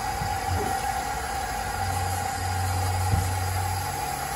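Water running through the hoses and Adey MagnaCleanse flushing filter as a central heating system fills up to pressure, with a steady whistle over it. A low hum joins about two seconds in and fades out shortly before the end.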